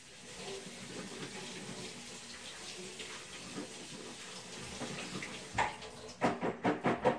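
Kitchen faucet running as baby red potatoes are rinsed in a strainer bowl. Near the end the water stops and the potatoes rattle in the bowl in a quick run of knocks.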